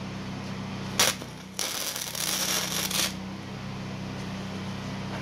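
Flux-core wire-feed welder arc on thin sheet steel: a sharp crack about a second in, then about a second and a half of steady hissing crackle before the arc cuts off. The heat is set a little high for the thin sheet, and the weld burns a hole right through.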